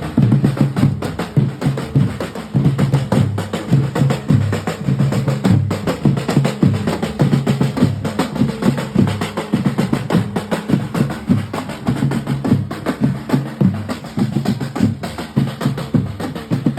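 Instrumental music with a busy, steady drum and percussion beat, including wood-block-like clicks, over a bass line.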